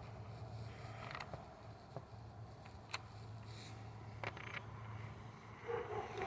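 Scattered light clicks and creaks of screws being turned and parts being fitted on a gasoline pressure washer's frame, over a low steady hum.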